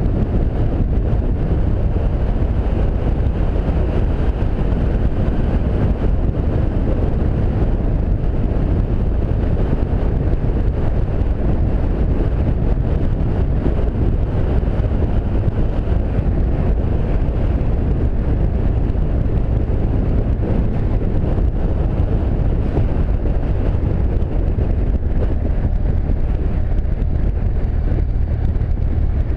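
Steady wind rush on a motorcycle-mounted action camera's microphone, with the motorcycle's engine and road noise running underneath while riding at road speed.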